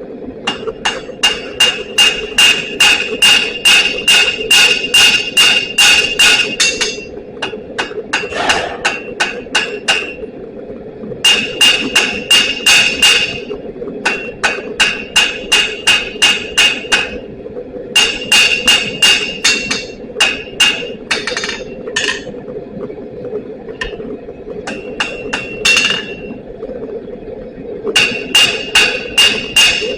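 Hammer striking steel on an anvil in runs of about three blows a second, each blow ringing, with short pauses between runs, over a steady low hum.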